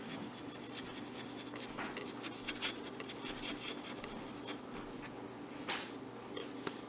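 A knife blade scraping around the inside edge of a steel bowl, loosening a steamed cake from the sides. It makes a faint run of small scratches and ticks, with one slightly louder scrape near the end.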